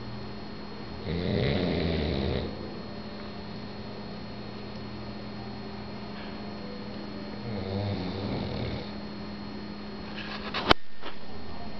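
A sleeping pug snoring: two long snores about six seconds apart. A single sharp click comes near the end.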